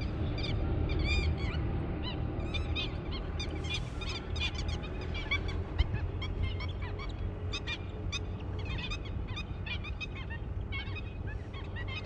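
A flock of water birds calling: many short, sharp calls overlapping and repeating over a steady low rumble.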